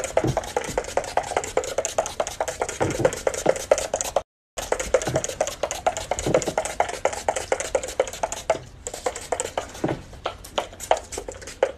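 Hand spray bottle pumped over and over, a fast, uneven run of clicking spritzes inside a car cabin. It breaks off briefly a little after four seconds.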